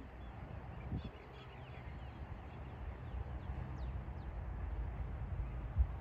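Wind noise on the microphone, with a few faint, short bird chirps in the middle.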